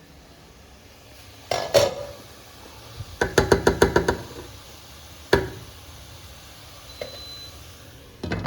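Kitchen pots, dishes and utensils knocking and clinking against one another, with a quick run of about eight clinks a little past three seconds in and single knocks before and after.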